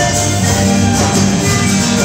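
Small live band playing an instrumental tune on acoustic guitars, violin and panpipes.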